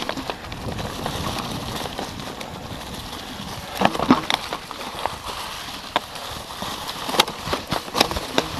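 Mountain bike riding down a rocky forest trail: tyres rolling over dry leaves and stones with a steady rushing noise, and sharp knocks and clatters from the bike over rocks, a cluster about four seconds in and more near the end.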